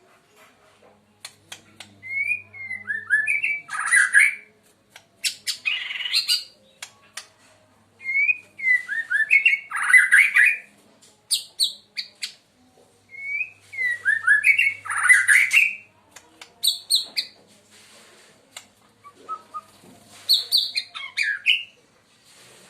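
White-rumped shama (murai batu Medan) singing loudly: four similar song phrases, each opening with a few short falling whistles and running into harsh, buzzy notes, with sharp clicks between the phrases.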